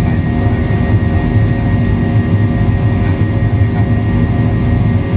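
Steady jet engine drone of a Boeing 737 climbing after takeoff, heard inside the cabin: a loud low rumble with a few steady hums over it.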